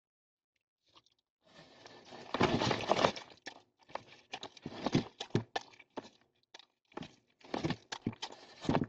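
Dogs eating dry cat food left out on a porch: an irregular run of crunching and knocking sounds, loudest about two to three seconds in.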